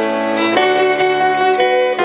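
Instrumental music: a violin playing long held melody notes over a soft accompaniment, moving to a new note about half a second in and again near the end.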